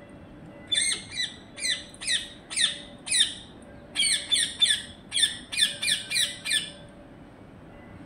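Rose-ringed parakeets calling: a run of about fourteen short, harsh squawks, starting about a second in, in two bursts with a brief pause midway, the second burst quicker.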